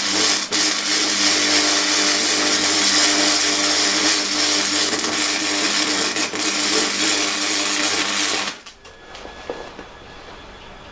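MIG welding arc running steadily with a continuous crackling buzz for about eight and a half seconds, then cutting off abruptly as the torch trigger is released.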